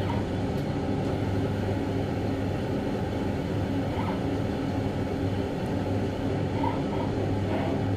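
Steady machine hum with a constant low drone and an even hiss over it.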